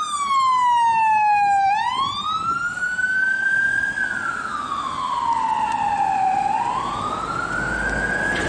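Garda police car siren wailing, its tone sweeping slowly down and up, twice over. A low engine rumble joins near the end.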